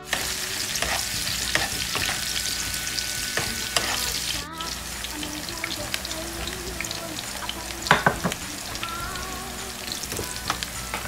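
Chopped onion and garlic sizzling in hot oil in a nonstick frying pan, with a metal spoon stirring and clicking against the pan. The sound breaks off briefly about halfway, and a louder clatter of the spoon comes just before the end.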